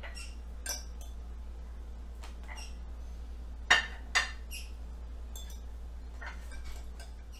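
A metal fork clinking against a glass pickle jar and small ceramic bowls being set down on plates: a few scattered light clinks, the two sharpest a little under four seconds in, over a steady low hum.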